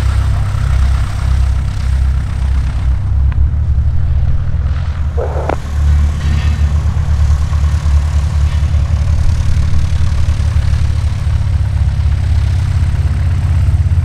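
Single-engine light aircraft's piston engine and propeller running steadily at low taxi power, a deep pulsing drone.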